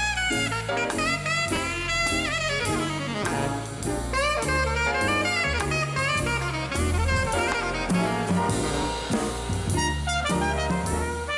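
Jazz ensemble: an alto saxophone plays a solo line full of bent and sliding notes over bass and drum kit.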